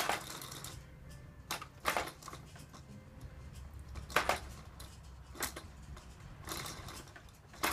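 A few scattered light clicks and knocks from a Fisher-Price Jumperoo bouncer's frame and tray toys as a baby bounces in it, over a low steady background.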